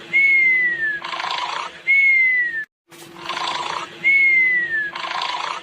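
Cartoon snoring sound effect: a raspy snore on the in-breath, then a whistle falling in pitch on the out-breath, repeated about every two seconds over a steady low tone. The sound cuts out briefly about halfway through.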